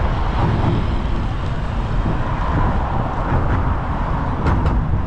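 Steady road traffic noise with a heavy low rumble, and a couple of short clicks about four and a half seconds in.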